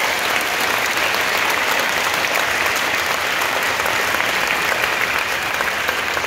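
A large seated audience applauding steadily.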